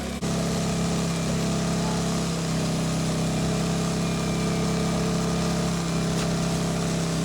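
An engine running steadily at a constant speed, its level stepping up slightly just after the start.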